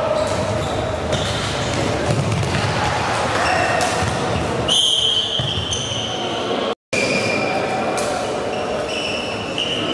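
Floorball game sounds echoing in a sports hall: clacks of sticks and the plastic ball, short high squeaks of indoor shoes on the court floor and players' shouts. The sound drops out for an instant about two-thirds of the way through.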